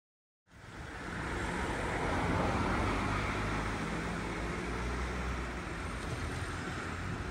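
Outdoor road traffic noise: a steady rush with a low rumble from a passing vehicle, cutting in suddenly about half a second in.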